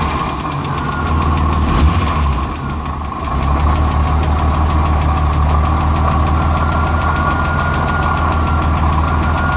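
Jeep Renix-era six-cylinder engine idling steadily with a heavy, fast rocker tick. The tick comes from the number 6 exhaust valve after its rocker arm bolt was backed off to cure a misfire, and the owner wonders whether a weak valve spring is the cause. The engine note dips briefly about two and a half seconds in.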